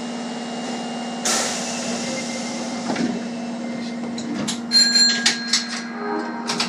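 Osaka subway train standing at a station with its doors working: a steady electrical hum, a sudden hiss about a second in, then a run of clicks and knocks with a short high electronic tone near the end.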